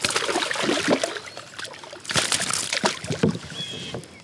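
Water splashing as a hooked smallmouth bass thrashes at the surface beside a kayak and is scooped into a landing net. The splashing comes in two spells, one at the start and another about two seconds in.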